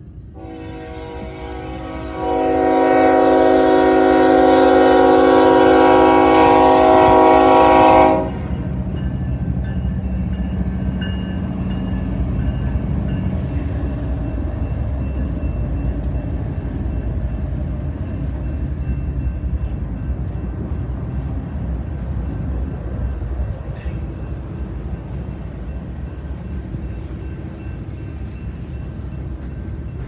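A freight locomotive's air horn sounds one long chord blast for the grade crossing, building over the first couple of seconds and cutting off sharply about eight seconds in. Then the GE diesel locomotives rumble past and the freight cars roll by with a steady rumble.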